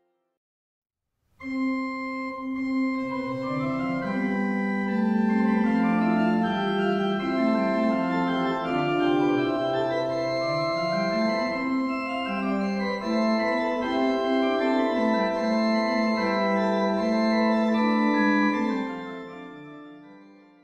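Pipe organ playing a slow, chordal passage on a small flute-based registration: Flöte 8', Spitzflöte 4' and Oktave 2'. It starts about a second in and fades away near the end.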